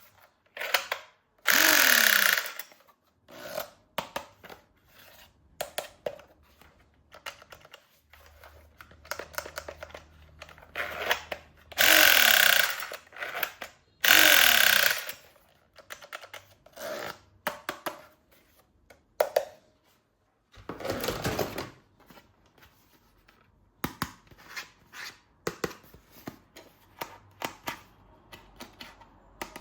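Battery-powered toy gun firing in several short, loud rattling bursts of about a second each, with plastic clicks and knocks from handling in between.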